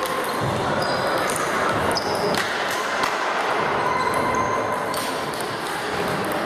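Table tennis balls clicking off bats and tables in a busy sports hall with many tables in play, over a steady hubbub of background voices and a few brief high squeaks.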